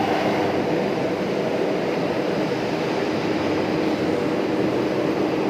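Steady industrial machinery drone with a faint hum running through it, unchanging throughout.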